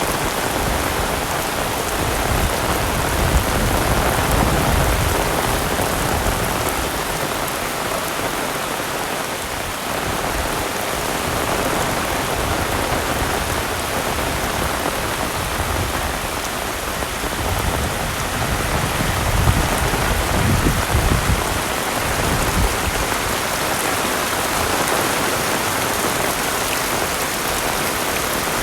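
Heavy rain falling steadily, a dense even hiss, with two spells of low rumble, one a few seconds in and one past the middle.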